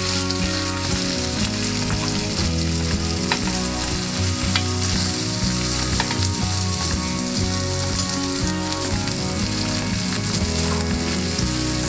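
Salmon fillets frying in butter in a grill pan: a steady sizzle, with a few light clicks as a spoon bastes them with the hot butter.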